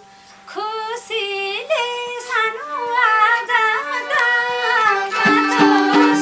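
A woman singing a Nepali dohori folk song, drawing out a long ornamented line with sliding pitch over a faint steady drone. Accompanying instruments come in about five seconds in.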